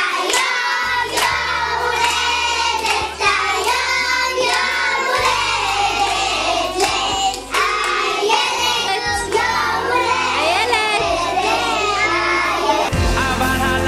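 A group of young girls singing loudly together over backing music.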